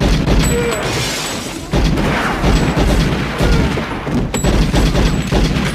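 Film gunfight: rapid, dense gunfire with heavy booming impacts, starting abruptly and growing louder a little under two seconds in.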